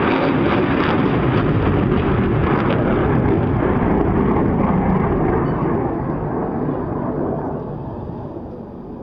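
Noise of the REXUS 16 sounding rocket's solid-fuel Improved Orion motor firing after lift-off: a loud, dense noise that holds steady, then fades over the last three or four seconds as the rocket climbs away.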